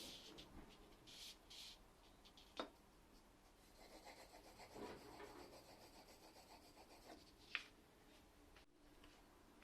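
Faint rubbing and scraping strokes, with two sharp clicks, one a little before the middle and one near the end.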